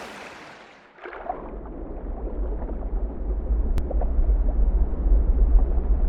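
Rushing water heard from underwater in a freshwater pool. The open-air splash and hiss of the stream fades out about a second in, and a muffled low underwater rumble takes over and slowly grows louder.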